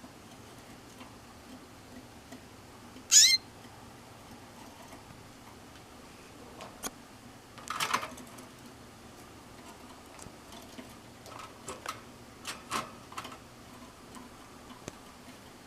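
A pet canary gives one short, loud, wavering call about three seconds in. Later there is a brief rustle and a scatter of light clicks and taps, like the bird moving about its stainless-steel cage.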